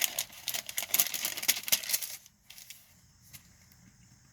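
Thin Bible pages rustling and crinkling as they are flipped, for about two seconds, then stopping, with one faint click after.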